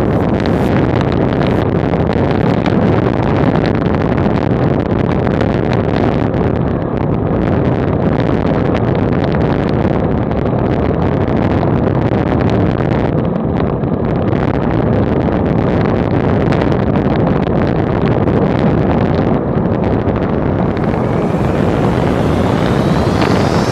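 Wind rushing over the microphone of a camera on a road bike at about 50 km/h, a steady loud noise without pitch or rhythm. A faint rising whine comes in near the end.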